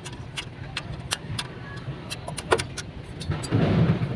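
Irregular sharp metallic clicks and taps, like small parts and tools being handled, over a steady low engine hum. About three and a half seconds in comes a louder rush of noise lasting about half a second.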